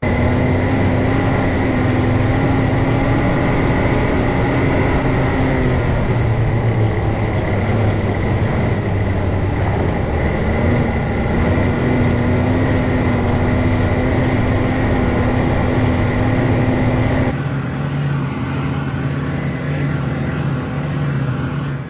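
Ski-Doo snowmobile engine running steadily under way on a snow trail, with track and wind noise. About three-quarters through the sound changes abruptly to a lower, thinner drone.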